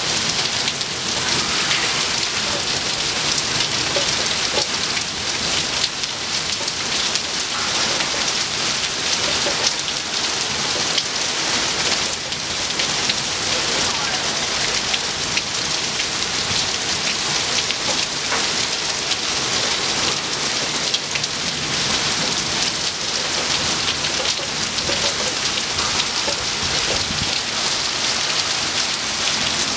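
Steady thunderstorm rain pattering on surfaces, a constant hiss full of fine drop strikes.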